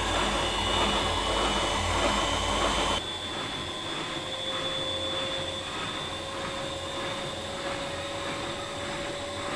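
Old Siemens washing machine's drum and motor spinning up on the spin cycle: a steady mechanical run with a whine rising slowly in pitch as the drum gains speed, and a faint pulsing about twice a second. About three seconds in the sound becomes quieter and thinner at the bottom end.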